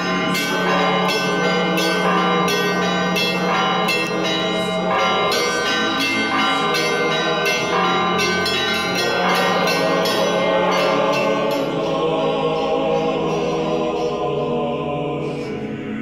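Church bells ringing a fast peal, many overlapping strikes about two or three a second over a steady low hum, thinning out and dying away near the end.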